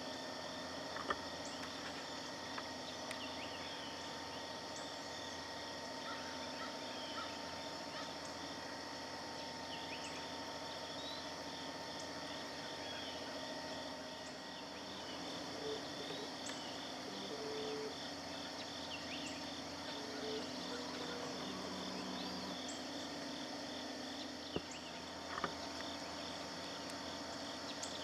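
Steady chorus of insects trilling, several shrill tones held at once, one pulsing evenly. Scattered short high chirps and a few soft clicks come through it, two of them close together near the end.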